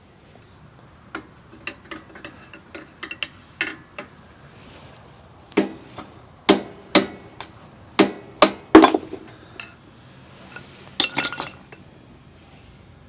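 A hammer striking metal in irregular blows, light taps at first and then a run of harder, ringing clanks, knocking the worn axle bearings out.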